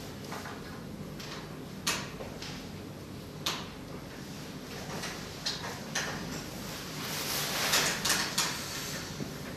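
Hands closing the water vent and inlet fittings on a diode laser machine: scattered clicks and knocks, with a brief stretch of rubbing or scraping about seven seconds in, over a steady low hum.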